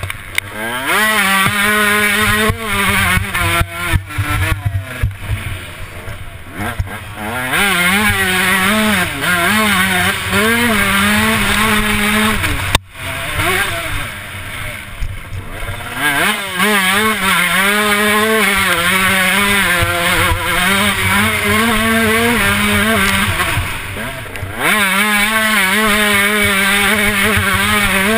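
Motocross bike engine heard from the rider's helmet camera, revving up and backing off again and again as the throttle is worked around the track, over a steady rush of wind on the microphone. About halfway through it cuts out sharply for a moment.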